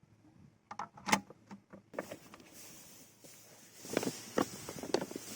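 A few sharp plastic clicks about a second in, then silica sand starting to pour into the plastic tank of a Flowclear sand filter. The sand makes a steady hiss that grows louder about four seconds in.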